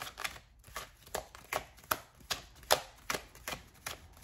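Tarot deck being shuffled overhand, small packets of cards dropping from one hand into the other in an even rhythm of about two to three strokes a second.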